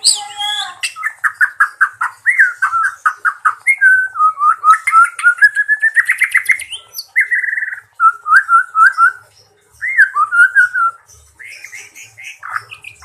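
White-rumped shama (murai batu) singing a loud, varied song of fast repeated whistled notes and trills, with a rising run of notes about four to six seconds in and brief pauses; the song is quieter and sparser near the end.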